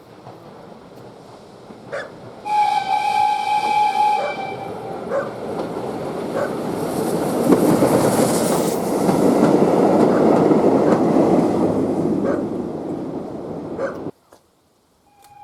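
TKt48 steam locomotive sounding its whistle, one steady tone held for about two seconds, then passing close with a heavy rolling rumble. The rumble builds to its loudest in the middle and cuts off abruptly near the end.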